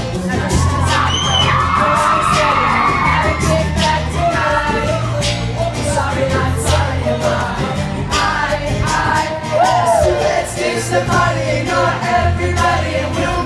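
Live band playing a pop-rock song: male vocals sung into microphones over electric guitar, keyboards and a steady drumbeat with held bass notes.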